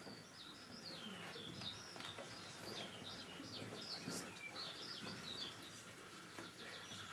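Birdsong: many small birds chirping and twittering in quick, overlapping calls, a forest ambience.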